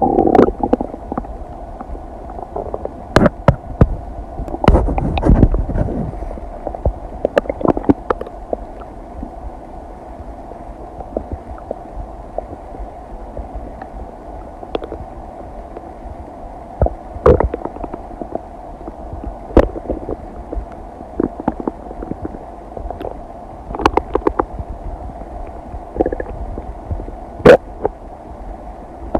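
Human stomach and intestines digesting: gurgles and rumbles with many short, sharp pops scattered throughout, and a longer, louder rumble about five seconds in, over a steady low hum.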